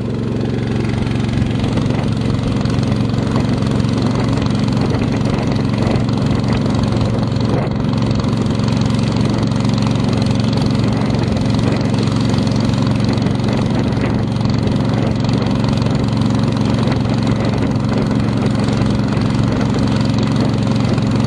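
Motor of a long, narrow river motorboat running steadily under way: an even, unbroken engine hum that neither rises nor falls.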